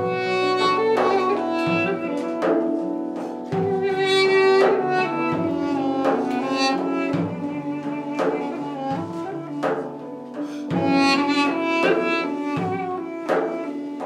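Live Armenian ensemble music: a duduk plays the melody over sustained violins, viola and cello. Frame-drum strokes mark the beat about once a second.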